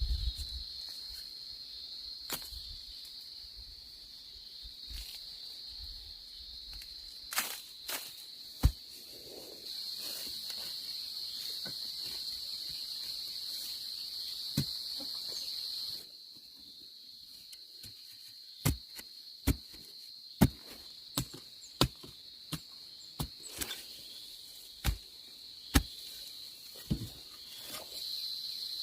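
Steady high-pitched chorus of crickets or similar insects, with sharp chopping knocks: a few scattered ones, then a run of about a dozen, roughly one a second, in the second half.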